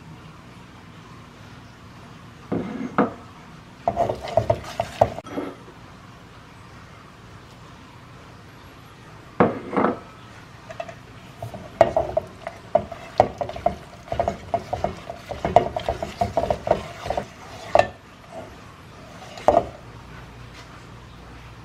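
Wire whisk beating an egg into thick choux pastry dough in a stainless steel bowl, its wires clinking and scraping against the metal. A few short clatters come in the first few seconds, then a long run of quick, rhythmic whisking strokes from about halfway through.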